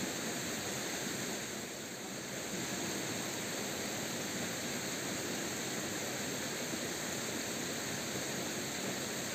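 Steady rush of a rocky mountain stream's flowing water.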